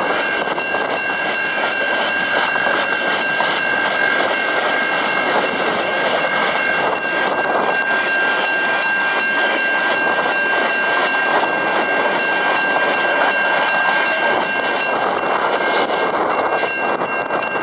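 Container freight wagons rolling past a level crossing with steady wheel-on-rail noise, while the crossing's electronic bells (a Safetran Type 3 and a Western Cullen Hayes e-bell) ring on as two steady high tones.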